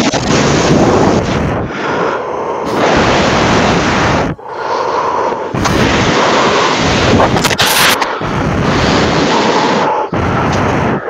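Very loud, harsh, distorted noise in stretches of a second or two, each breaking off sharply into the next.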